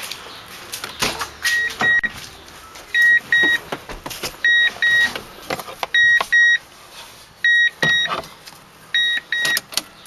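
Electronic warning chime in the Toyota Tundra's cab beeping in pairs, a pair about every second and a half, over knocks and rustling as someone settles into the driver's seat.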